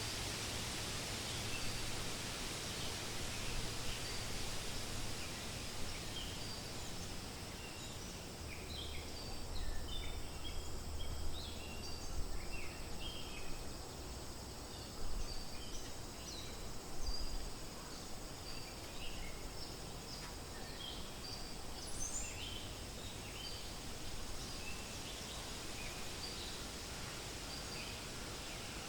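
Wind rustling through forest leaves in a steady hiss, with many short, high bird chirps scattered over it, busiest in the middle.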